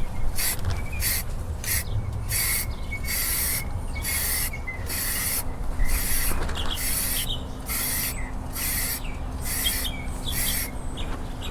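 Aerosol spray-paint can hissing in many short, repeated bursts as black paint is sprayed onto a bass boat's hull. Birds chirp faintly underneath.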